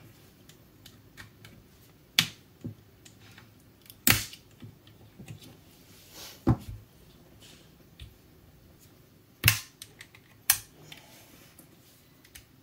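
Sharp clicks and snaps, about half a dozen at uneven intervals with faint scraping between, as an opened DeWalt FlexVolt battery pack is pried and picked apart by hand and with a small pick.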